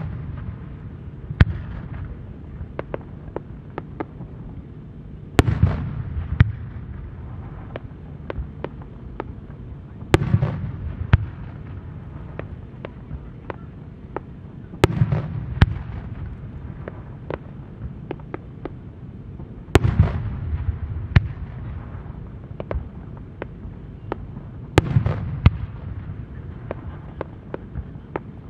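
Aerial firework shells bursting one at a time, about every five seconds. Each burst is a sharp bang followed by a low rolling echo, with fainter pops and crackles in between.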